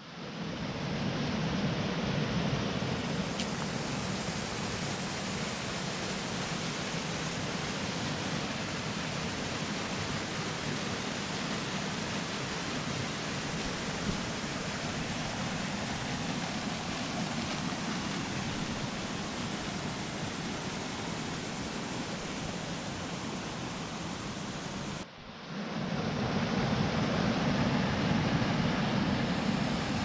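Steady rushing of a stream's flowing water. It breaks off briefly about 25 seconds in and comes back a little louder.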